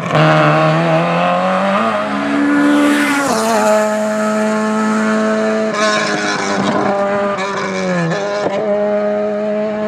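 Rally car engine at high revs, its pitch climbing and dropping with gear changes and lifts off the throttle: a sharp drop about three seconds in, a steadier stretch, then more dips near the end.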